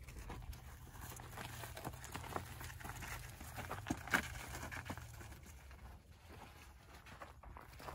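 Footsteps crunching on loose rock and gravel, with scattered clicks and rustles as a recovery strap is handled and carried.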